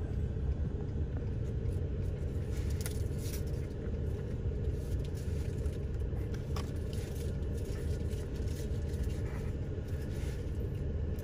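Steady low rumble of a vehicle heard from inside the cabin, with a few faint small clicks and rustles.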